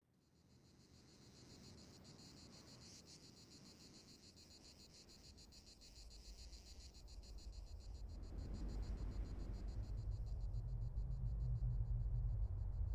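Crickets chirping in a steady, rapidly pulsing high chorus as the sound fades in. From about six seconds a low rumble swells steadily louder and takes over, while the crickets fade.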